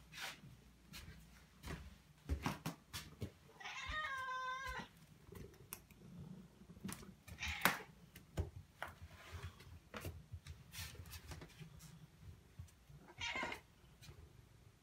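Tabby domestic cat meowing: one clear, drawn-out meow a few seconds in and a shorter one near the end, among scattered small clicks and taps.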